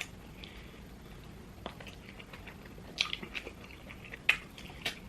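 Close-miked eating sounds: a person chewing food with mouth open, a few sharp wet clicks and smacks spaced a second or so apart.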